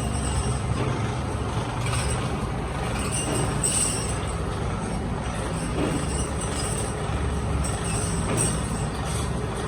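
Steady workshop machinery noise: a constant low hum under an even hiss, with faint scattered clicks.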